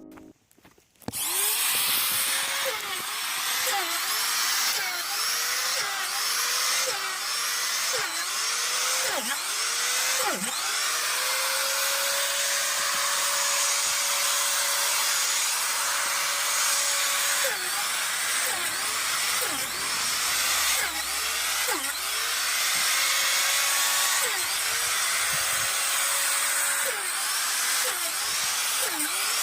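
Electric drill boring a run of holes into a shiitake log for spawn inoculation. It starts about a second in, and the motor's pitch drops each time the bit bites into the wood and climbs back between holes, about one hole a second. There is a longer steady run in the middle.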